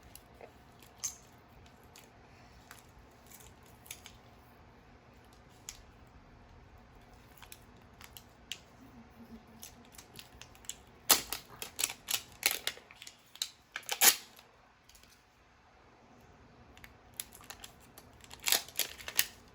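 Plastic toy packaging being handled and opened: scattered small clicks and crinkles, with louder bursts of crackling and tearing about eleven seconds in and again near the end.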